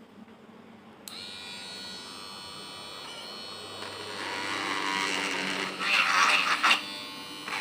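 Electric drill starting up about a second in and running with a steady whine, then boring into a PVC pipe: the sound turns louder and rougher in the second half, loudest just before the end as the bit cuts through.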